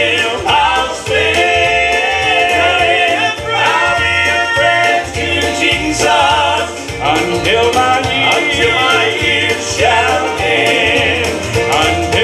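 Male southern gospel vocal group singing in harmony into microphones, with instrumental accompaniment underneath.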